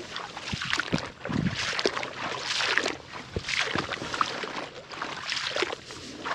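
Someone wading through shallow water in a flooded rice paddy, the water sloshing and splashing with each step, about one step a second, with a few dull low thumps in the first few seconds.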